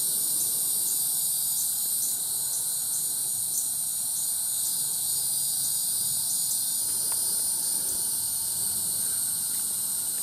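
Dense evening insect chorus, crickets and the like, a steady high-pitched shrill. One insect chirps about twice a second over it until it stops about seven seconds in.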